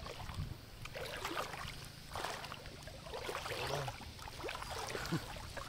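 Shallow river water splashing and dripping in irregular bursts as a cast net is hauled in and gathered by hand.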